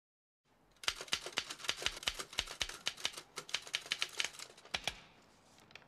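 Manual office typewriter being typed on fast, with rapid keystrokes several times a second. The typing starts about a second in and stops about five seconds in.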